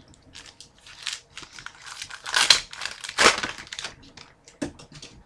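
A Panini Zenith hockey card pack wrapper crinkling and tearing as it is opened by hand, in irregular crackling strokes that are loudest about halfway through.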